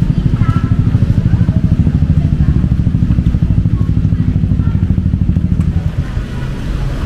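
Motorcycle engine running close by with a fast, even pulse, easing off about six seconds in.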